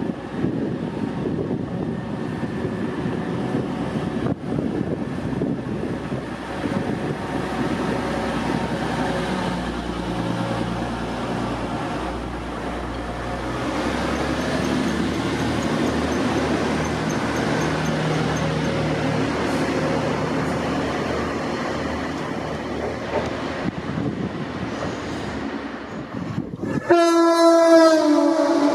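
TransPennine Express Class 185 diesel multiple unit running past along the platform, its underfloor diesel engines and wheels on the rails giving a steady rumble. Near the end a train horn sounds loudly for about two seconds on one steady note.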